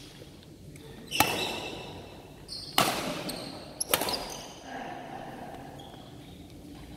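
Badminton racquets striking a shuttlecock in a rally: three sharp hits between about one and four seconds in, each echoing in the hall.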